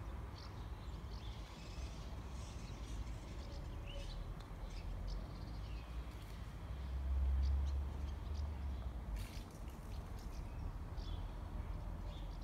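Small birds chirping with short, scattered calls over a low steady rumble that swells briefly about seven seconds in.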